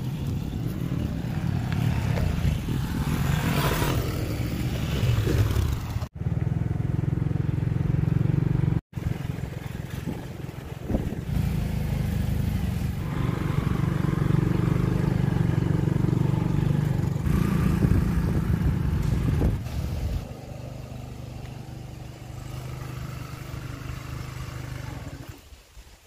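Motorcycle engines running on a rough dirt trail. The sound breaks off briefly twice and becomes quieter for the last few seconds.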